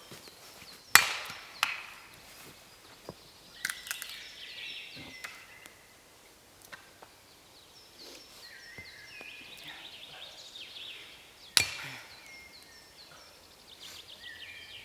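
A few sharp cracks of wood being snapped or struck, the loudest about a second in and again near the end, with birds chirping in short repeated notes in between.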